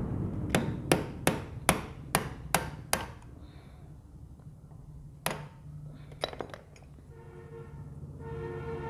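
Hammer striking a screwdriver against a nut on a motorcycle engine's magneto side: seven quick metallic blows, about two and a half a second, then a single blow and two lighter taps. Near the end a steady tone with overtones comes in.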